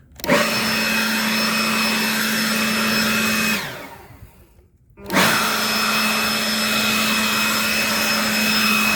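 Ryobi cordless leaf blower run in two bursts of steady, whining blowing, cut off about a third of the way in and started again a second and a half later.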